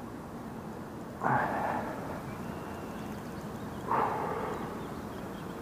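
Two short, breathy exhales, about a second in and again about four seconds in, over a steady low background hiss.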